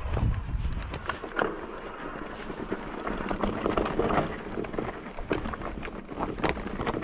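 Wind buffeting an action camera's microphone, strongest in the first second, with irregular knocks and rattles of an e-mountain bike rolling over a rough, rocky trail.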